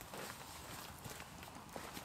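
Footsteps and rustling on leaf-strewn forest ground: a faint, irregular crackle of small steps and shuffles.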